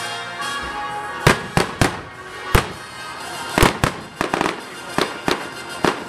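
Fireworks bursting overhead: about ten sharp bangs and cracks, starting about a second in, some in quick pairs. Music plays steadily underneath.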